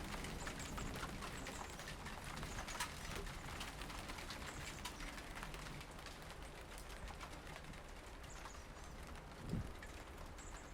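Raw outdoor ambience: a steady low wind rumble on the microphone, many small scattered clicks, and faint high bird chirps now and then. There is one louder thump about nine and a half seconds in.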